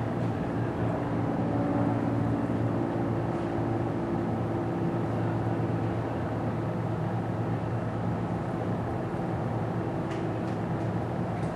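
Steady low mechanical hum of a running motor or engine, holding several steady tones, with a few faint clicks near the end.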